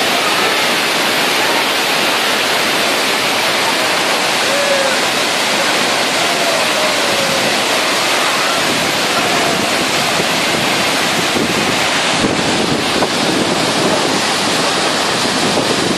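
Tall waterfall's steady, loud rush of falling water, with more low rumble from about halfway through.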